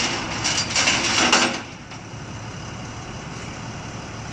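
Vehicle engine idling steadily, with loud bursts of hissy, scraping noise during the first second and a half.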